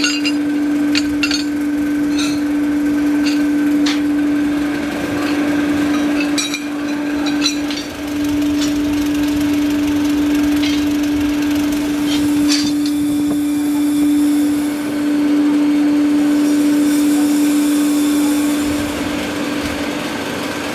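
Electric blower feeding a brick-and-mud forge, running with a steady hum of one pitch. Flat steel bars clink and clank as they are picked up and set down, mostly in the first eight seconds.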